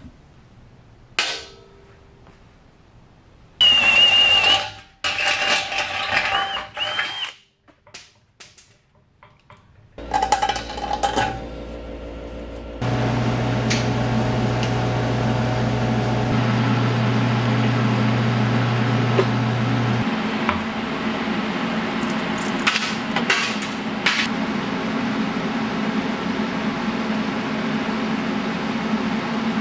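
TIG welding arc on a steel Sportster gas tank: a steady hiss with a low electrical hum that starts about 13 seconds in and holds to the end. Before it come a few short, loud bursts of shop-tool noise.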